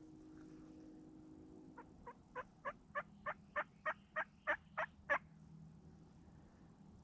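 A series of about twelve turkey yelps, roughly three a second, building in loudness and stopping abruptly about five seconds in.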